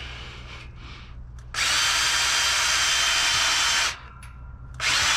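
Handheld power drill running at speed in two spells: about two and a half seconds, a stop of about a second, then starting again near the end. A freshly re-sharpened twist bit is being tried in steel.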